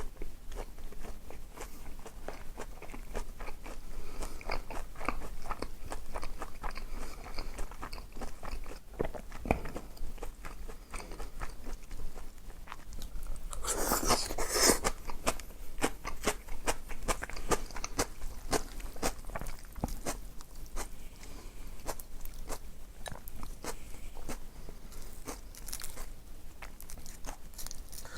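Close-miked eating: a person biting, crunching and chewing food in a run of crisp crackles, with a louder spell of crunching about fourteen seconds in.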